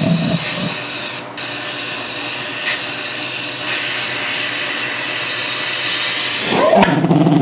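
Steady loud hiss of compressed air and propane blown into a carbon-fibre pulsejet as a propane fireball flares out of it. The engine does not catch and run. The hiss breaks off briefly about a second in, and a short rising tone is heard near the end.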